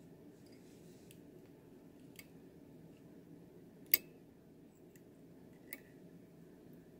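A few light clicks and taps as fingers work the thread through the metal thread guide and tension discs of a Singer Style-o-Matic 328 sewing machine, the sharpest about four seconds in, over a faint steady low hum.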